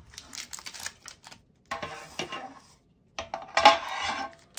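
Metal trading-card tin handled in three bursts of clinks and scrapes, the loudest near the end with a brief metallic ring.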